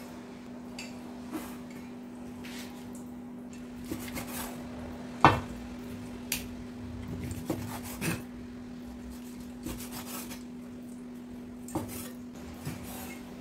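Kitchen knife cutting raw chicken on a cutting board: scattered, irregular knocks of the blade against the board, the loudest about five seconds in.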